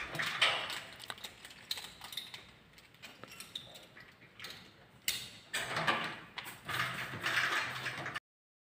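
Intermittent scraping and clicking of tinting tools working and trimming window film on a wet glass pane.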